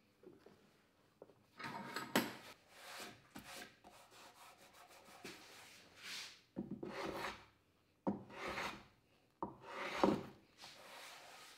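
Hand plane taking shavings off a block of spalted beech: a series of separate strokes, each under a second, with short pauses between them.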